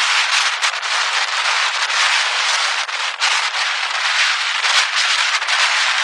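Loud, steady rushing noise full of rapid crackles: storm wind buffeting the microphone.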